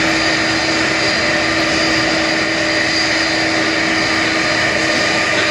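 Boeing 747's four jet engines at taxi power as the airliner rolls along: a steady, loud rush of jet noise with a constant whine on top.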